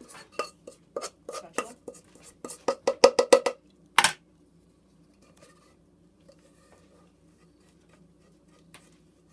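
Metal spoon clinking rapidly against a pot as hot maple candy syrup is scooped out and drizzled, a quick run of strikes that speeds up and gets louder near the three-second mark, then one louder knock about four seconds in.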